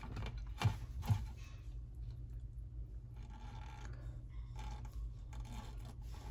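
Water monitor feeding on chopped raw meat in a plastic tub: small wet snaps and scrapes as it bites, with two sharp knocks about a second in, over a steady low hum.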